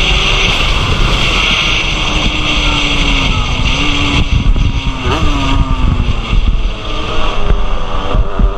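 Yamaha DT two-stroke race motorcycle engine running hard at high revs, heard from an onboard camera with heavy wind rush. The engine note wavers and dips about halfway through, then climbs again.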